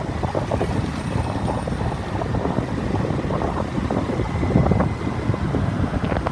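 Motorbike ride in city traffic: wind buffets the microphone over steady engine and road noise.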